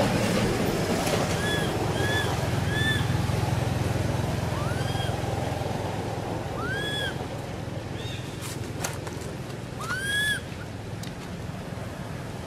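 A baby monkey giving short, high, arched whimpering calls, several times at irregular intervals, the loudest about ten seconds in. Under them runs a steady low rumble.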